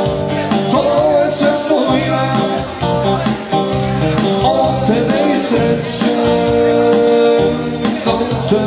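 Arranger keyboard playing an instrumental break of a song: a melody line over a full backing accompaniment, played live.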